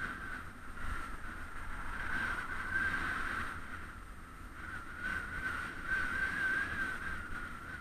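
Riding noise from a bicycle-mounted camera: wind rumbling on the microphone, with a steady, slightly wavering high whine over it.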